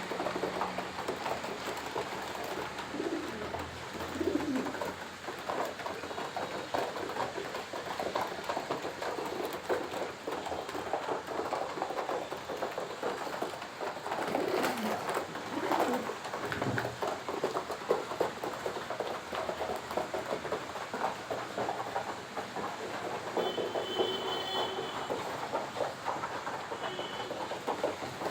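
A flock of fancy pigeons cooing, with low coos rising and falling over a constant scratchy clatter.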